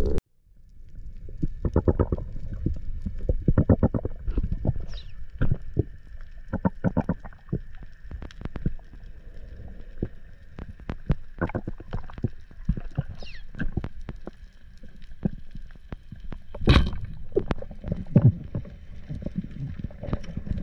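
Underwater ambience through a diver's camera: a steady low rumble of moving water with frequent sharp clicks and crackles, and one loud knock about three-quarters of the way through.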